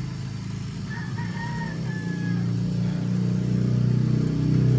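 A rooster crowing once, a pitched call lasting about a second and a half, over a steady low mechanical hum that grows louder near the end.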